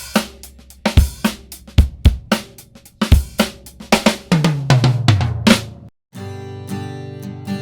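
Recorded drum kit playing a beat of kick, snare, hi-hat and cymbals, run through a MOTHER VIVID 3-band EQ for demonstration, closing with a descending tom fill. The sound cuts out briefly about six seconds in, then an acoustic guitar strums a ringing chord.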